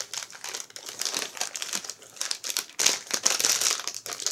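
Plastic bag of hard candies crinkling and crackling in uneven spurts as hands struggle to tear it open.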